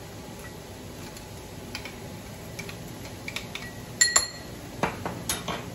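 Small clicks and taps of a metal hand grater and utensil against a ceramic bowl as grated garlic is scraped off, with one sharper clink that rings briefly about four seconds in.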